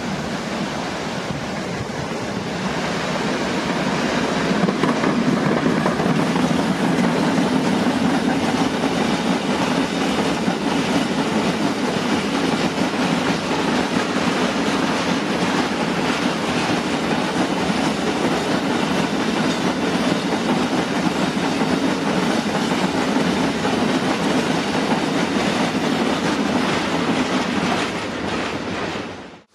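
TEM2 diesel-electric shunting locomotive passing, followed by a long train of loaded Fa hopper wagons rolling by, their wheels clattering steadily over the rails. It grows louder over the first few seconds, stays steady, and cuts off suddenly near the end.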